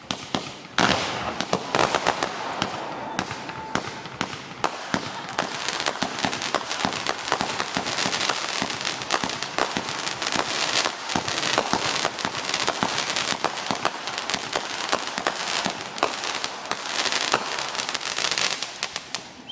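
Fireworks going off in quick succession: dense crackling and popping with many bangs, the loudest one about a second in.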